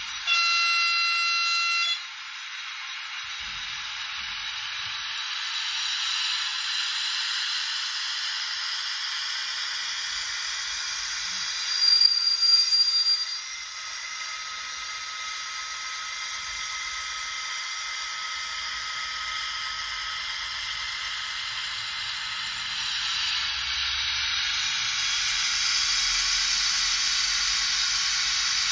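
Digital sound decoder of a Piko HO-scale Vossloh G6 diesel-hydraulic shunting locomotive playing through the model's small speaker, thin with no low end: a horn blast about half a second in, lasting about a second and a half, then the diesel engine sound running with a steady hiss. A short high-pitched sound breaks in near the middle, and the engine sound grows louder near the end.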